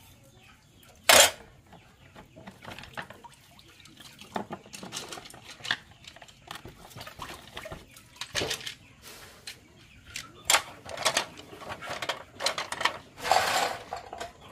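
Scattered clatter of pots, dishes and utensils being handled, with a sharp knock about a second in and busier clinking near the end.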